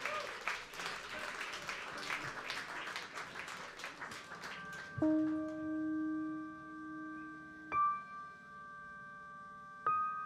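Audience applause that dies away about four seconds in, followed by a small electronic keyboard playing long held notes, with a new note struck three times a couple of seconds apart.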